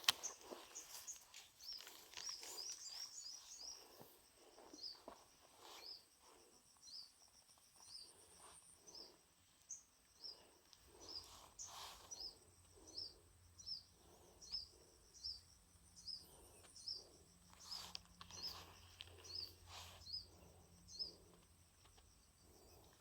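A bird repeating a short, high call about once a second, over faint outdoor background noise.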